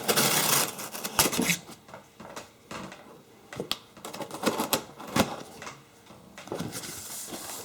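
A heavy boxed vise and its packaging being handled: a short rustle and scrape at the start, then scattered sharp knocks and clicks.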